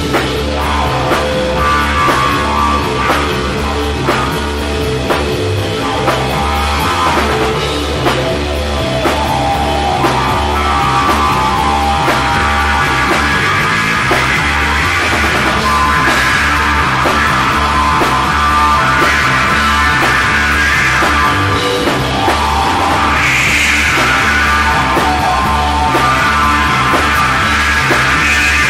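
Loud psychedelic rock track with a steady, driving beat.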